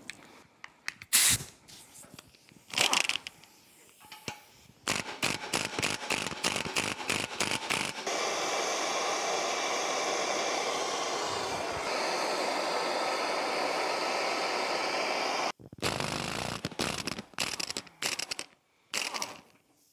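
Handheld gas torch burning with a steady hiss for about seven seconds, heating a corroded prop shaft housing that a puller could not free; the hiss stops abruptly. Before it come scattered clicks and a quick run of ticks, and after it a few sharp clicks and knocks of tools on metal.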